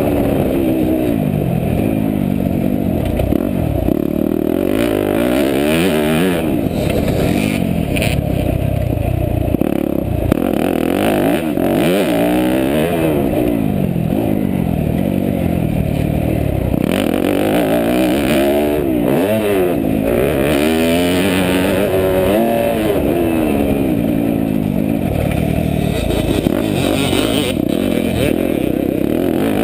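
Yamaha YZ250F single-cylinder four-stroke motocross engine ridden hard, revving up and dropping back over and over as the rider works the throttle and gears. The pitch rises and falls every couple of seconds, with a few sharp clicks along the way.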